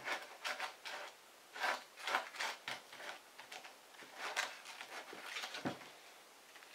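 Short, irregular scrapes and taps of small objects handled on a wooden workbench as match heads are crushed into powder for a homemade igniter, with a duller knock about two-thirds of the way through.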